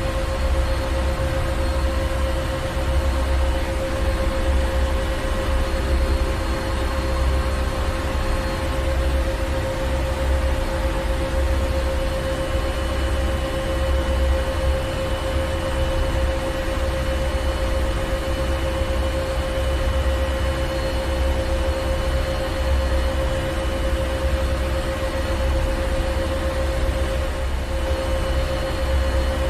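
Ship engine room: heavy machinery running steadily with a deep throbbing rumble, a constant mid-pitched hum and a wash of mechanical noise.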